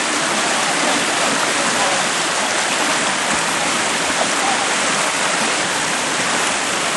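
Whitewater river rapids rushing, a steady, loud wash of water noise.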